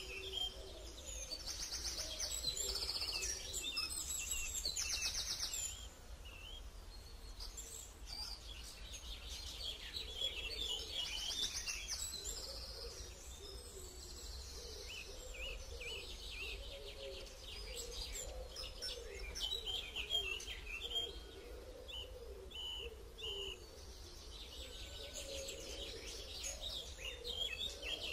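High-pitched animal calls: repeated short chirps with stretches of rapid trilling, over a low wavering drone.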